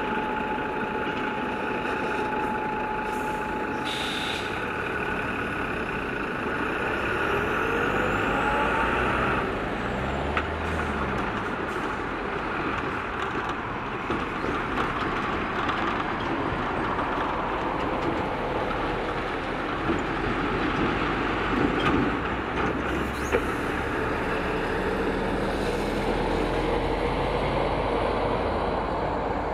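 Lorries and cars starting off and driving over a railway level crossing, their engines rising in pitch as they accelerate away.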